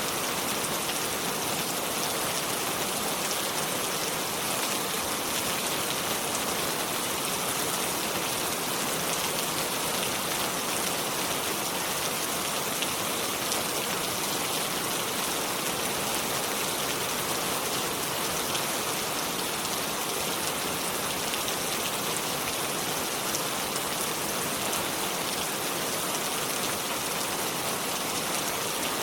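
Steady rain falling, an even hiss with fine drop patter.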